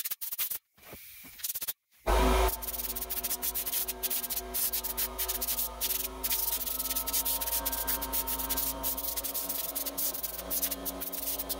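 Compressed air from a shop air-hose blow gun hissing as it blasts dust off a CNC router. It starts loud about two seconds in, then keeps on as a wavering hiss.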